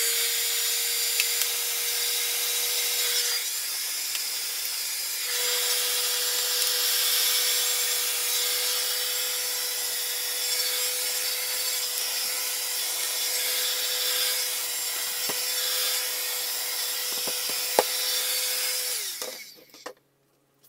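Heat gun running steadily, a fan whine over the rush of blowing air, shrinking PVC heat-shrink film around an 18650 lithium battery pack. Near the end it is switched off and the whine drops away as the fan winds down.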